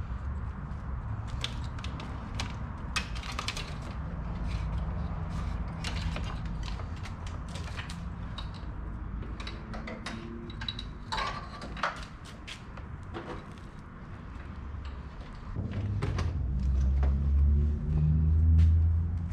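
Clicks, knocks and light rattles of car parts being handled and fitted, in a headlight being put in. A low rumble underneath grows louder near the end.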